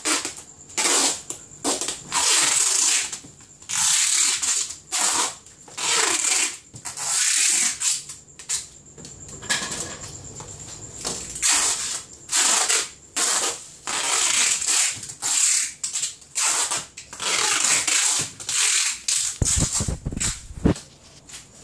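Packing tape being pulled off the roll and pressed down to seal styrofoam boxes: a long run of short, irregular rasping strips.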